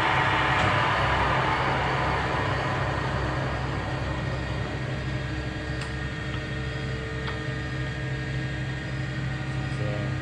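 Monarch 610 Hydro Shift tool room lathe spinning its 12.5-inch three-jaw chuck fast, then winding down to a stop over the first few seconds. A steady low hum from the machine's drive carries on underneath. A couple of faint clicks come from the controls.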